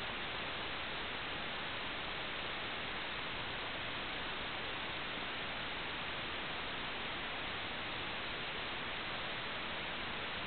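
Steady, unchanging static hiss with no other sound in it: the empty audio channel of an analog video downlink receiver.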